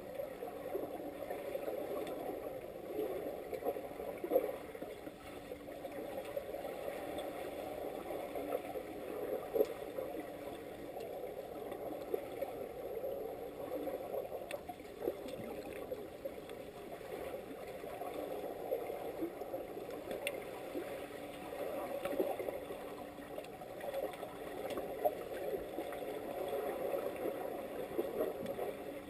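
Underwater swimming-pool sound picked up by a submerged camera: a muffled, steady churn of water stirred by finned swimmers, with a few scattered clicks and knocks.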